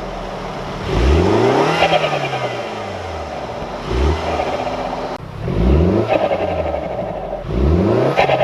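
MINI John Cooper Works engine through the JCW Pro exhaust, revved four times, each rev climbing in pitch and then dropping back toward idle.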